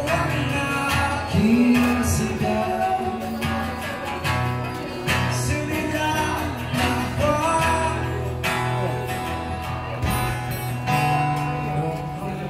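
Two acoustic guitars strummed and picked together, with a man singing a slow melody over them.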